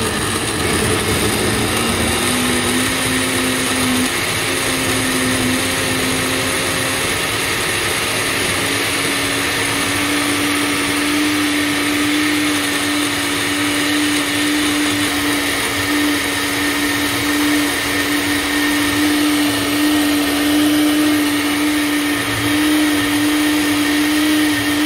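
Countertop blender motor running steadily, puréeing chopped peppers, onion, tomato and chili with water into a smooth sauce base. Its hum rises slightly in pitch over the first ten seconds, then holds steady.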